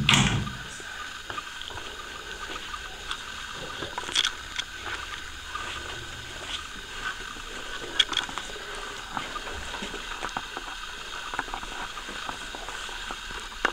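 Quiet footsteps and small handling knocks of people moving through a room, over a steady hiss, with a louder thump right at the start and sharper knocks about four and eight seconds in.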